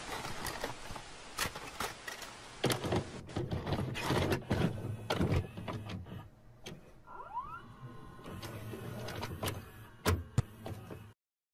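A VCR's tape mechanism clunking and clicking as a videotape loads and starts to play, with bursts of static hiss. A short rising whir comes about seven seconds in, and the sound cuts off suddenly just before the end.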